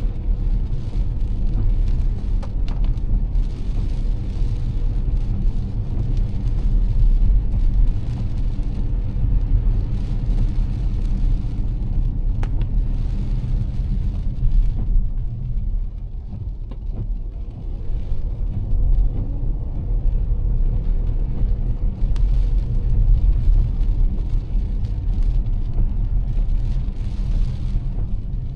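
Car driving on a rain-soaked road: a steady low rumble of engine and road noise with a hiss of wet tyres and rain that swells and fades several times.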